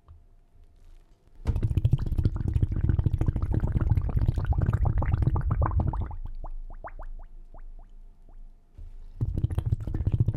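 Underwater bubbling sound effect: a dense run of gurgling bubbles begins about a second and a half in, then gives way to single bubbles, each rising in pitch, about two a second. The bubbling starts again near the end.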